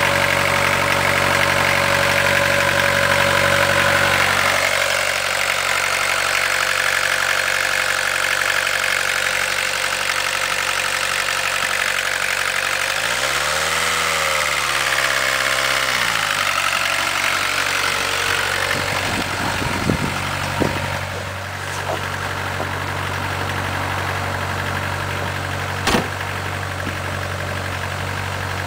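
1981 VW Rabbit's four-cylinder diesel engine idling steadily. About halfway through it is revved once, briefly, rising in pitch and falling back to idle. A few sharp knocks come in the last third.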